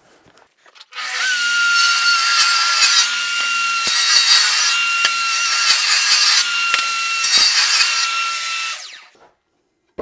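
Bosch GTS 10 XC table saw running and cutting a part-depth kerf into a wooden panel to mark out a rabbet. It starts abruptly about a second in, runs with a steady high whine over the noise of the blade in the wood, and stops shortly before the end.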